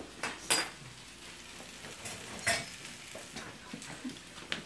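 A spoon stirring kimchi fried rice in a frying pan, knocking and scraping against the pan several times, with a faint sizzle underneath.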